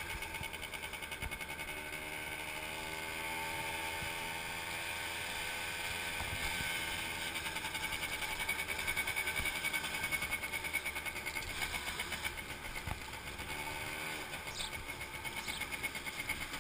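Motorbike engine running while riding, its pitch rising and falling as the throttle changes.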